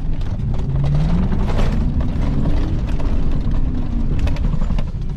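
2002 Chevy Silverado pickup's engine revving up under load and easing off again, climbing to a peak about halfway through, with scattered knocks and clatter from the truck working over rough ground.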